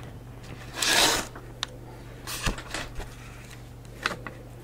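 Rustling and rubbing handling sounds close to a handheld microphone, likely as the book is leafed to the passage to be read. One louder rustle comes about a second in, then a few softer rustles and light knocks. A steady low hum runs underneath.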